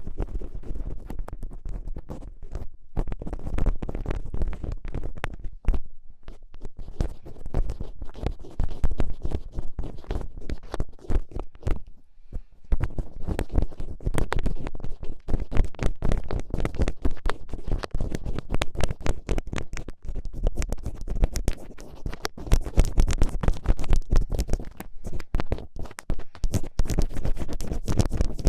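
Thin ear picks scratching and scraping in an ear, very close to the microphone: a dense, irregular run of small scratches and clicks, with a brief pause about twelve seconds in.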